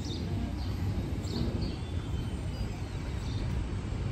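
Outdoor ambience: a steady low rumble, with small birds chirping briefly a few times.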